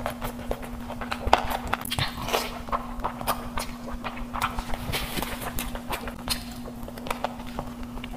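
Close-miked eating sounds: wet chewing and lip smacking as meat curry and biryani rice are eaten by hand, heard as a run of irregular sharp mouth clicks over a faint steady hum.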